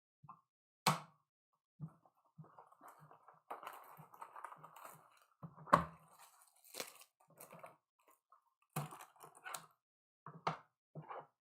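Trading-card packaging being handled and opened: irregular crinkling and tearing of plastic and foil wrappers, with several sharp snaps and taps mixed in.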